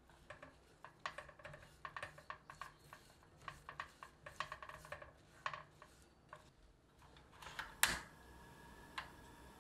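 Silicone spatula stirring blueberries and sugar in a ceramic saucepan: a quick run of scraping, gritty strokes. Near the end a gas stove's igniter clicks loudly, with a smaller click a second later, and the burner then burns with a low steady hiss.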